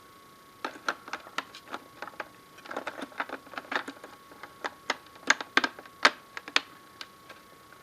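Irregular clicks and taps of plastic and metal parts being handled and fitted as a Sony DVD player/amplifier is put back together. They come in quick clusters with single sharper clicks between them, and they stop about a second before the end.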